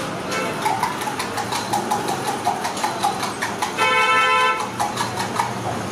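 Quick metallic clinks and taps, several a second, from steel cooking utensils and containers being handled, with a short vehicle horn toot about four seconds in over street traffic.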